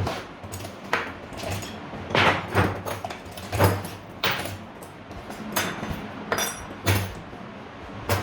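Irregular knocks, clicks and scraping of metal parts being handled and struck, unevenly spaced at about one to two a second, with a short low hum under some of the louder knocks.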